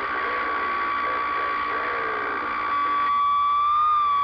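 CB radio receiver putting out a steady whistle tone over static, with faint garbled voice underneath. About three seconds in the static drops away and the whistle comes through stronger, wavering slightly in pitch near the end.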